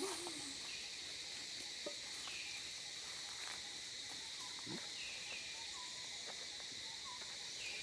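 Steady high-pitched drone of insects, with a few short, faint falling chirps.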